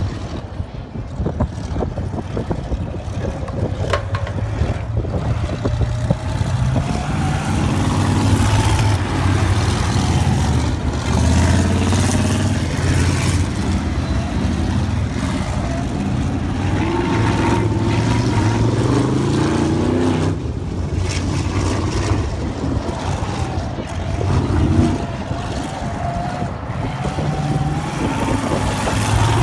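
Winged sprint cars' V8 engines running laps, the engine pitch rising and falling again and again as the cars speed up and ease off around the track.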